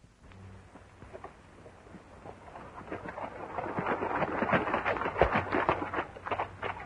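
Hoofbeats of a horse approaching on hard ground, a rapid clatter that grows steadily louder over several seconds.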